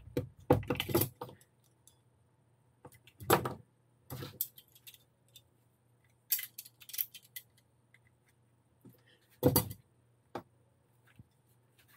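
Irregular clinks and rattles of pliers and small metal and plastic RC-car parts being handled and set down on a workbench while the rear suspension is taken apart. They come in short scattered clusters with quiet gaps.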